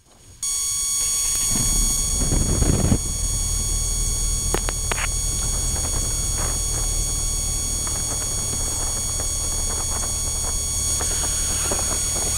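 Light aircraft's piston engine running, heard from inside the cockpit: a loud, steady drone that cuts in abruptly just after the start and swells slightly a couple of seconds in.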